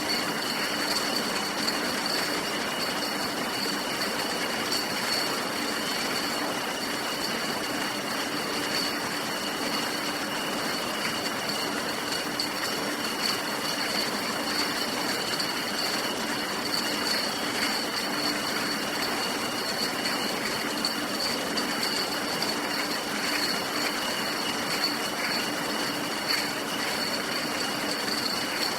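Beer bottling line running: a steady factory machine din with high whines and a constant fine clatter of glass bottles.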